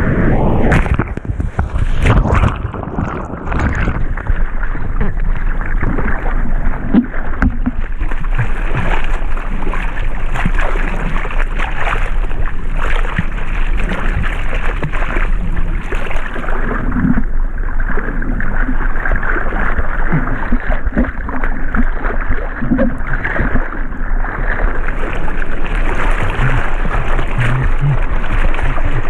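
Seawater sloshing and splashing around a surfboard moving through the water, heard from a camera mounted on the board at the water surface: a loud, steady wash of water noise.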